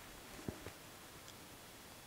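Faint steady hiss with two soft clicks close together about half a second in.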